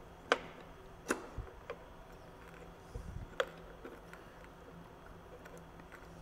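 Handling of a small metal lab clamp as it is lowered on a support rod and fitted around a round-bottom flask's neck. It makes a few separate sharp clicks and a couple of soft knocks over a faint steady hum.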